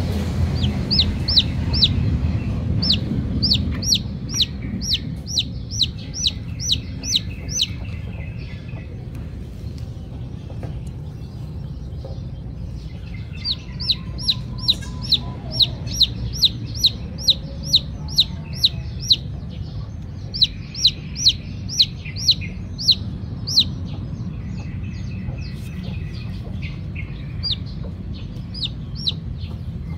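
Newly hatched chicks peeping loudly: sharp, high, falling peeps, several a second, in runs of a few seconds broken by short pauses, over a steady low rumble. These are distress calls of chicks without their mother hen.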